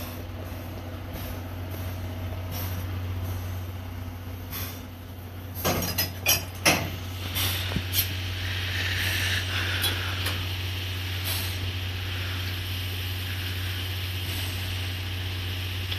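C11 steam locomotive and its brake van standing with a steady low hum; about six seconds in, a few sharp metallic clanks and clinks from the front coupling gear, followed by several seconds of hissing.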